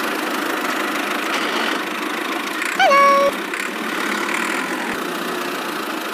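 Steady engine running sound for a miniature tractor pulling a trolley. About three seconds in, a loud horn-like honk dips in pitch, then holds for about half a second.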